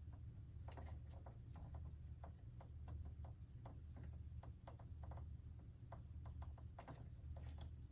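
Faint, irregular small clicks and taps from hands handling the opened cassette data recorder's plastic parts, with a low steady hum underneath.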